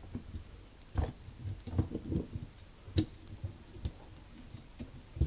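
Toy monster trucks being pushed, picked up and set down on a play board: irregular knocks and clicks, about half a dozen in a few seconds.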